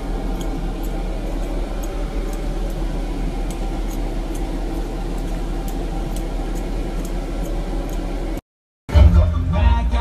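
Steady road and engine noise of a car driving, a low rumble with faint ticks over it. It cuts off about eight and a half seconds in, and after a brief gap hip-hop music with a rapping voice starts near the end.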